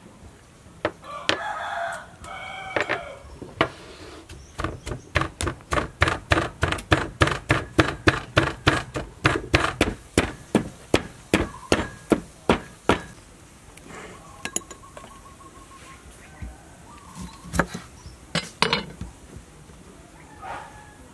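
Pestle pounding garlic and red chili in a clay mortar: a long run of steady knocks at about four a second, with a few more strokes near the end. A chicken clucks near the start.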